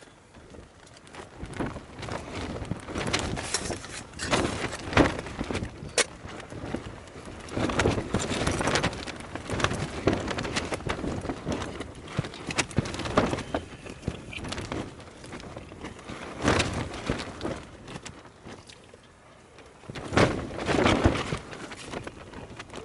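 Knife and fork scraping and clicking on a dinner plate while eating, in irregular bursts with a sharp click about six seconds in.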